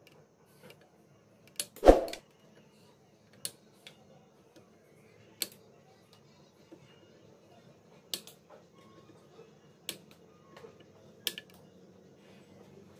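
Side cutters snipping off the excess component leads on the solder side of an inverter welder's circuit board, giving about seven sharp clicks at uneven intervals. The loudest comes about two seconds in, with a dull knock.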